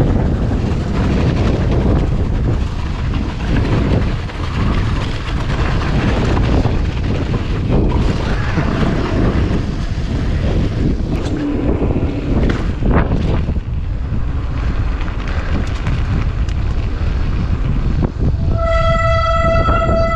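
Electric mountain bike descending rough, snowy moorland: a steady rush of wind on the handlebar camera's microphone mixed with tyre and trail noise and scattered rattles from the bike. About a second and a half before the end, a steady high-pitched tone with overtones starts and holds.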